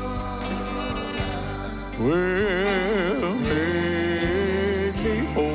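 Live gospel song with a band and electric bass: a man sings a loud, wavering "Oh" from about two seconds in, then holds a long note.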